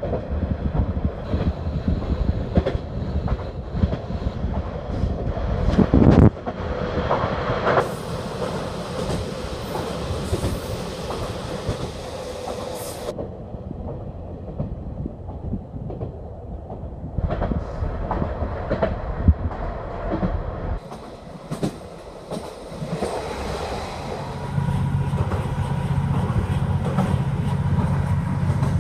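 Train running on the rails, heard from inside the carriage: wheels clicking over rail joints over a constant running rumble, with one louder knock about six seconds in. A deeper, steadier drone sets in during the last few seconds.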